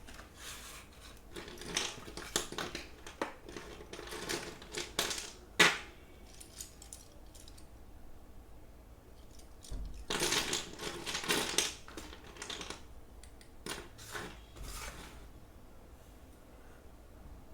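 Slate pencils and their packaging being handled in two spells of clicking, rattling and rustling. The sharpest click comes about five and a half seconds in.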